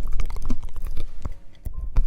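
Close-miked ASMR trigger sounds: a dense run of crackles, taps and scratches with low thumps, dropping away briefly about one and a half seconds in.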